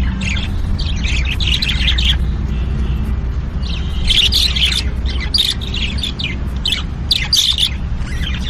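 Many birds chirping, trilling and squawking, from a recorded birdsong track, over a steady low rumble.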